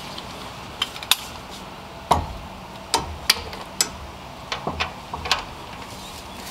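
About a dozen sharp, irregular metallic clicks and knocks, some with a dull thud beneath them, from a wrench and hands working the serpentine belt back onto the alternator pulley in a car's engine bay.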